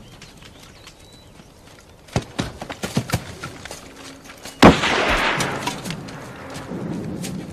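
Battle sound of rifle fire and a shell explosion: a quick run of gunshots about two seconds in, then a loud explosion a little past the middle whose blast noise dies away slowly.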